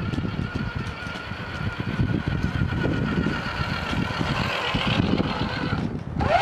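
Axial RR10 Bomber RC rock crawler running past: a steady, slightly wavering electric motor and drivetrain whine over a rough rumble. The transmission is no longer clicking, now that it has been packed with grease.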